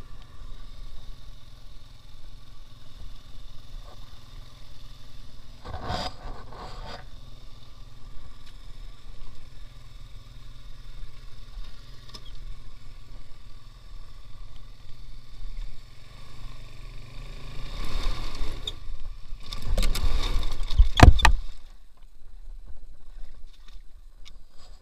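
Engine of a two-wheel-drive off-road motorcycle running steadily. A short louder burst comes about six seconds in, and a longer, louder stretch runs from about eighteen to twenty-one seconds. The engine sound stops about twenty-two seconds in.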